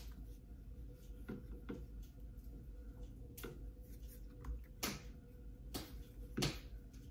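Light plastic clicks and knocks as the arm of an Osmo Mobile smartphone gimbal is handled, turned and folded. There are about half a dozen scattered, irregular clicks, the strongest near the end.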